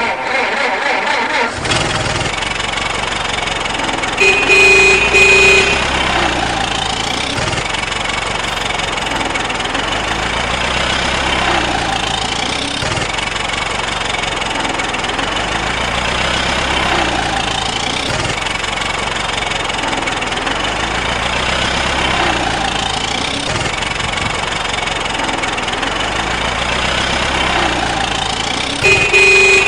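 Truck engine sound effect running steadily, its pitch rising and falling in a repeating cycle about every five seconds. A short horn blast sounds about four seconds in and again at the end.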